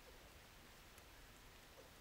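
Near silence: faint outdoor background hiss, with one faint tick about halfway through.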